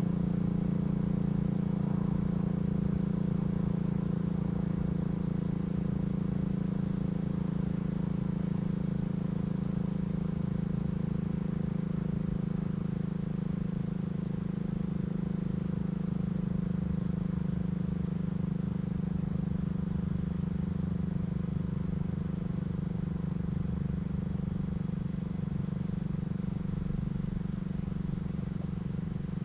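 A steady low hum, with crickets trilling high above it and holding an even pitch throughout.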